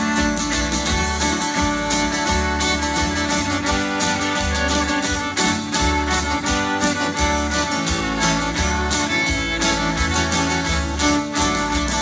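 Fiddle playing the melody over steadily strummed acoustic guitar: an instrumental break with no singing.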